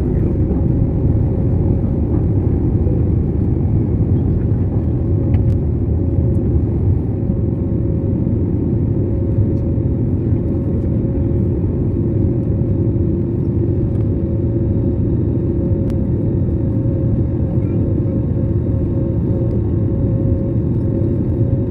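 Steady airliner cabin noise: a Vietjet jet's engines and airflow making a constant low rumble with a faint steady hum above it, the aircraft in flight after takeoff.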